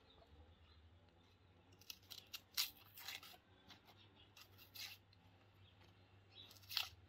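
Small knife peeling and scraping the dry papery skin off an onion: a handful of short crisp scrapes and rustles, faint, the loudest a couple of seconds in and another near the end.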